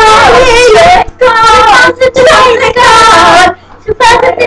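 A child singing loudly with no clear words, in long wavering notes of about a second each, broken by short gaps.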